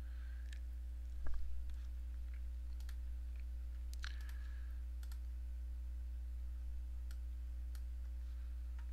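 Scattered light clicks at a computer keyboard over a steady low hum, with one louder knock about a second in.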